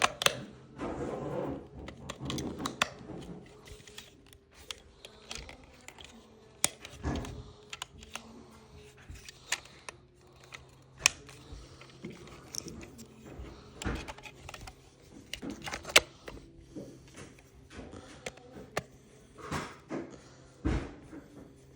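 Irregular plastic clicks, taps and knocks of hands handling a toy RC remote control and fitting small batteries into it.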